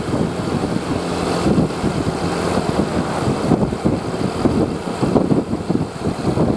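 Bus engine running, with a steady fluctuating rumble.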